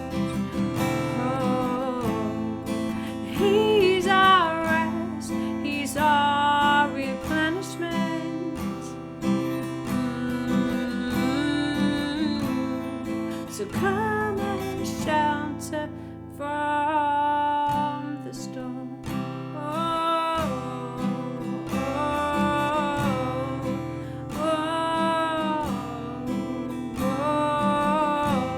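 Acoustic guitar strummed in a slow worship song, with a voice singing long, held notes that carry no clear words.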